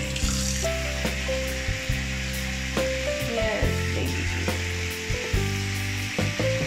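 Tap water running into a sink and splashing, a steady hiss, over background music of held low notes that change every second or so.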